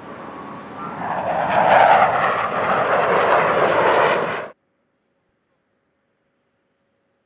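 Sukhoi Su-35S fighter jet's engines roaring as it passes overhead, growing louder about a second in and staying loud for about three seconds. The sound then cuts off abruptly, leaving near silence.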